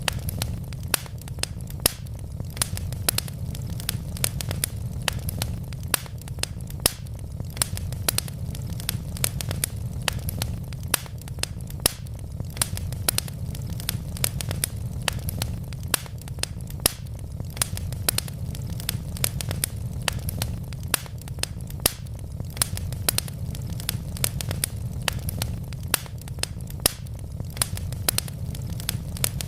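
Wood logs burning in a fireplace, crackling with many sharp pops, several a second, over a steady low rumble of the fire.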